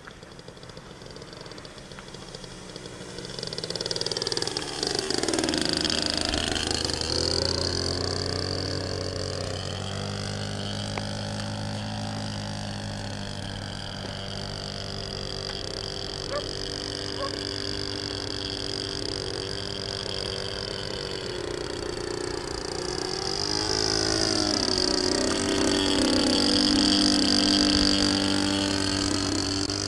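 Radio-controlled model Cessna 152 airplane flying, its motor and propeller giving a steady high whine. It gets louder and drops in pitch as it passes, twice: once about five seconds in and again near the end.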